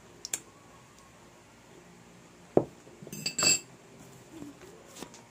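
Metal fork tapping and clinking against a small plate while eating. There is a light tap early on, a sharp knock about two and a half seconds in, then a ringing clink a moment later.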